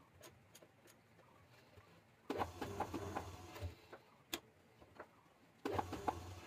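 Wood lathe switched on briefly twice, spinning a large rough jackfruit log between centres with a motor hum and rapid clattering: once about two seconds in for a little over a second, and again near the end. Faint ticks and a single knock come between the two runs.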